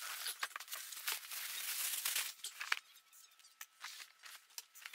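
Plastic wrapping and a cardboard box rustling and crinkling as a packed roll table is pulled out, followed by a few scattered light taps and rustles about halfway through.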